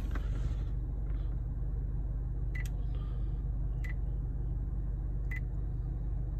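2014 Honda Accord touchscreen audio unit beeping once for each digit pressed while the radio security code is keyed in: three short beeps about a second and a half apart. A steady low hum fills the car's cabin underneath.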